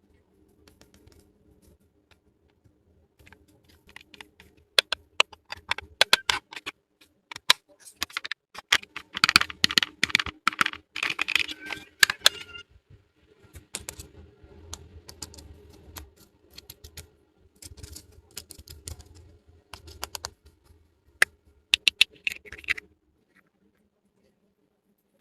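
Small plastic toy pieces being handled and set down: a run of sharp clicks and taps, densest in a quick cluster near the middle, stopping a couple of seconds before the end.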